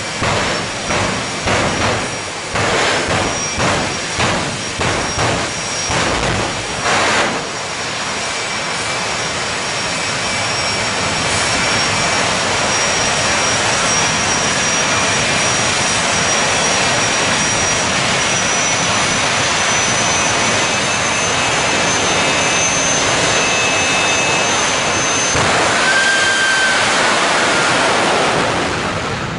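Jet dragster engines running at the drag strip, surging about twice a second for the first seven seconds or so, then holding a steady loud roar with a high whine on top.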